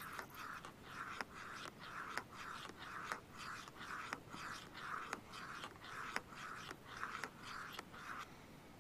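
A metal spoon stirring sauce into water in a steel canteen cup, scraping round the cup about twice a second, with a few sharp clicks. The stirring stops a little before the end.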